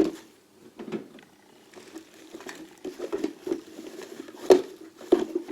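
Tools and parts being handled and rummaged in a toolbox: irregular knocks and clatter, the loudest about four and a half seconds in and again a moment later.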